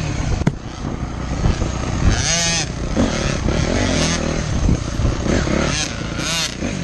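Dirt bike engine running hard on a woods trail, revving up and easing off, with two quick rising-and-falling revs, about two seconds in and near the end. A sharp knock about half a second in.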